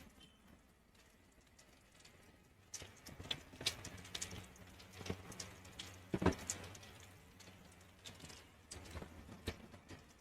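Chicken strips frying in hot oil: faint hiss with irregular crackles and pops, starting a few seconds in.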